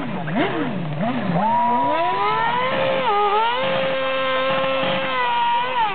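Toyota TF108 Formula One car's 2.4-litre V8 being revved: quick blips up and down for the first second and a half, then held at high revs with a short dip about three seconds in and another near the end.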